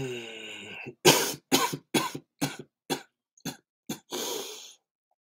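A man's coughing fit: a voiced throat sound, then seven sharp coughs about two a second, the first the loudest, ending in a long rough breath.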